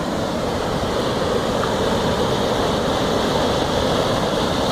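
Floodwater rushing over and past a small bridge swollen by heavy rain, a steady loud roar of water.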